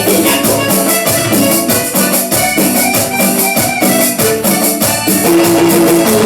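Instrumental passage of a cumbia song with no singing: a steady, fast shaker-and-drum rhythm under sustained keyboard melody notes, with the percussion played on an Octapad electronic drum pad.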